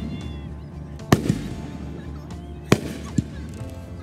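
Aerial firework shells bursting: a sharp bang about a second in with a smaller one close behind, then two more bangs about a second and a half later, a short rumble trailing each.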